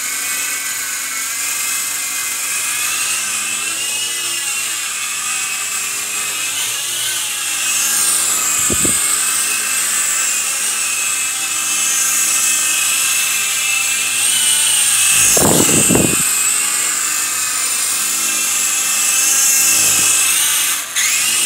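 Small indoor RC toy helicopter's electric motors and rotors whirring in flight, a steady high whine whose pitch wavers as it is steered. Two brief knocks come about 9 and 16 seconds in, and the whirring stops just before the end.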